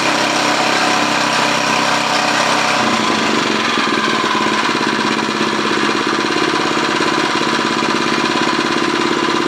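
Small gasoline tiller engine running steadily, back in running order after failing to start; its note changes about three seconds in.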